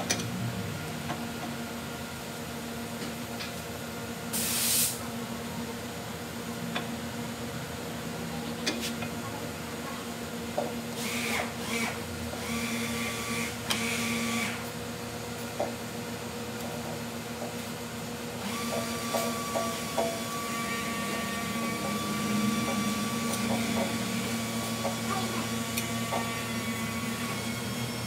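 Metal parts and hand tools clinking and scraping as crash bar bolts are fitted to a motorcycle frame, with short scrapes about four seconds in and again around eleven to fourteen seconds in, over a steady background hum.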